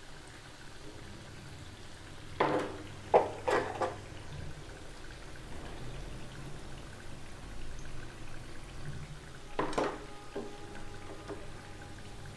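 Dalia (broken-wheat) patties shallow-frying in oil in a pan, a steady soft sizzle. A wooden spatula and steel spoon knock against the pan as patties are lifted out: three short knocks between about two and a half and three and a half seconds in, and another near the end.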